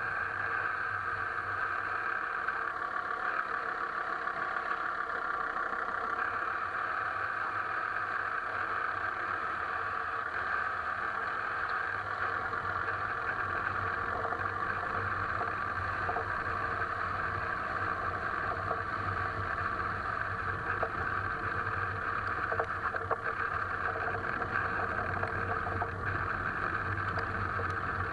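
Alfa Romeo 159 driving with a steady road and running noise, and a few light knocks in the second half, around 16 to 23 seconds in: the suspension knock being looked for.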